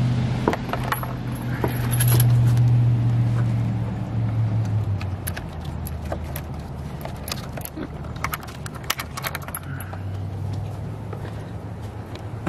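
Metal chains and snap hooks on a wooden gate clinking and rattling as the gate is fastened, the clinks thickest about two thirds of the way through. A steady low hum runs underneath, strongest in the first few seconds.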